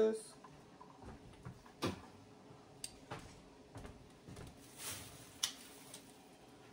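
A kitchen cabinet is opened and shut while things are handled: about five scattered light knocks and clicks.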